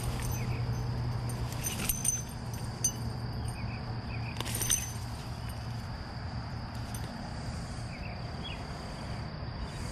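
Steady high-pitched insect drone over a low hum, broken by a few sharp clicks about two seconds in and again near the middle.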